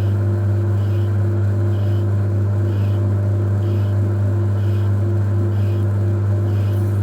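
Metal lathe running steadily with a strong low hum, turning a VW 1.9 TDI piston in a four-jaw chuck while its combustion bowl is bored out. A faint pulse repeats about once a second.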